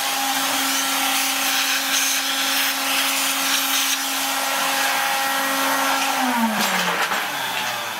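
Shop vacuum clearing metal shavings from the milling work: a steady motor whine over rushing air, switched off about six seconds in and winding down in pitch.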